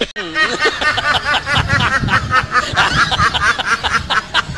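Rapid, continuous snickering laughter in quick short bursts.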